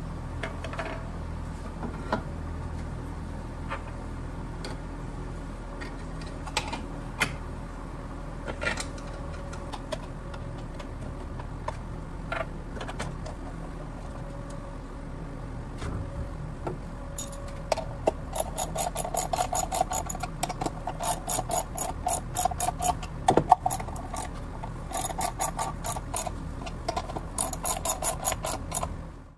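Bolts and nuts being fitted to a 3D-printed plastic pulley on a mini bike's rear wheel: scattered clicks and knocks of hardware being handled. Then, from a little over halfway in, a ratcheting wrench clicks in rapid runs as the nuts are tightened.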